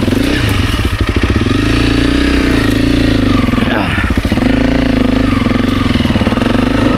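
Honda CRF300 Rally's single-cylinder four-stroke engine revving hard under load during a standing-start climb up a steep hill. The revs swing up and down, with a sharp drop and recovery about four seconds in.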